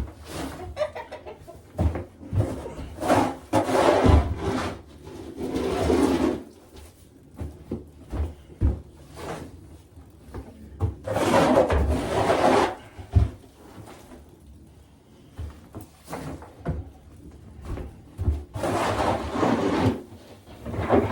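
Four long scraping strokes as soiled bedding is scraped off a chicken coop floor with a hand tool, with short knocks in between and chickens clucking now and then.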